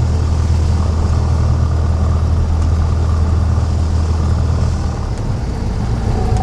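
Cessna 172's piston engine and propeller running steadily, loud and low, with its tone shifting about five seconds in.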